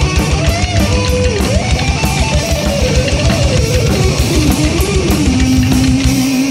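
Instrumental heavy metal passage: a lead guitar line with pitch bends over a fast, steady kick-drum beat and rhythm guitar, ending on a long held note as the drums drop out.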